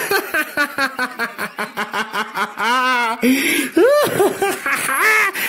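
Maniacal laughter from several voices at once. A fast staccato ha-ha-ha comes first, then from about three seconds in it turns to higher, wavering cackles and squeals.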